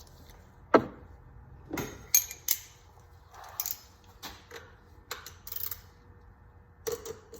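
Metal tool clicks and clanks: a 3/8-drive ratchet with a 73 mm cap-type oil filter socket knocking and scraping against the oil filter. Irregular sharp knocks, the loudest a little under a second in, with short scrapes between them.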